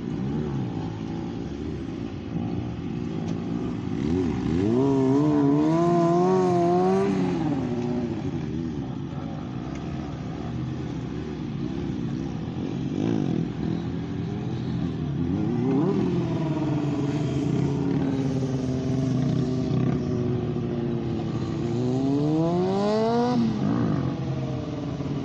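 Motorcycle engines revving during wheelie stunts. A rev climbs about four seconds in and wavers up and down as the throttle is worked, a shorter rev peaks and falls away in the middle, and another rev climbs steeply and drops off near the end.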